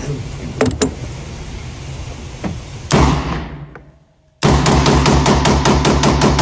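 A few sharp knocks, then a loud bang about three seconds in that dies away into near silence, in keeping with gunshots at a shooting range. About a second later a music track with a fast, steady beat cuts in.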